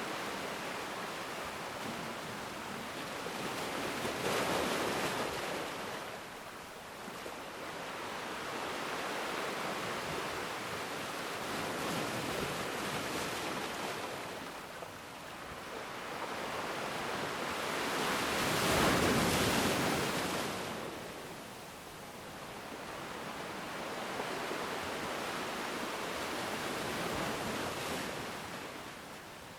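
Ocean surf: waves washing in, the rushing noise swelling and fading about every seven or eight seconds. The loudest surge comes about two-thirds of the way through.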